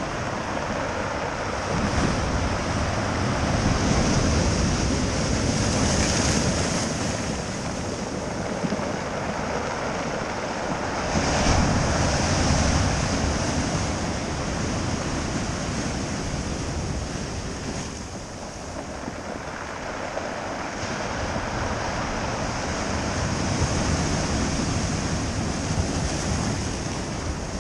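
Ocean surf breaking and washing ashore at high tide, swelling louder and easing off every several seconds, loudest about halfway through, with wind rumbling on the microphone.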